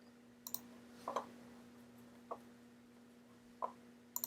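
A handful of faint, separate clicks and taps, a second or so apart, over a low steady electrical hum.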